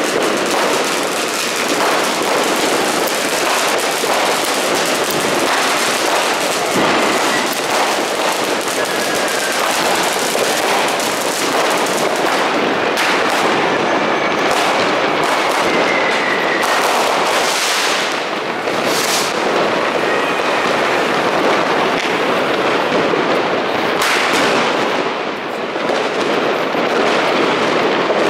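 Dense, unbroken barrage of New Year's Eve fireworks and firecrackers going off all around: a near-constant crackle of bangs, with a few faint whistles about a third and two-thirds of the way in.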